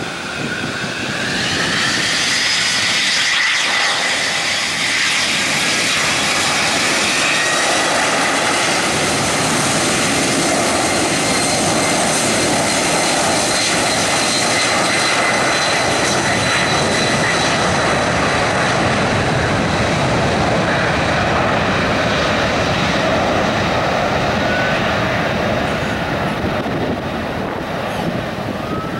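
McDonnell Douglas MD-11 trijet freighter's turbofan engines spooling up to takeoff thrust, with a whine rising in pitch over the first couple of seconds. Then a loud, steady jet roar with a high whine on top through the takeoff roll and rotation.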